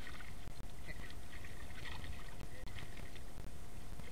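A hooked dorada splashing and thrashing at the water's surface beside the boat while being played on a rod, heard as scattered splashes over a steady low rumble.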